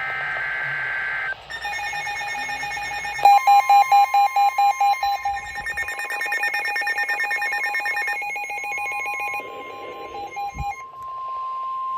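Several NOAA weather radios sounding an alert at once: a brief buzzy screech of SAME digital header data, then the radios' pulsing alarm beeps over the steady 1050 Hz NOAA warning alarm tone, which starts about three seconds in and holds. The beeping is loudest and slowest at first, then turns faster and softer.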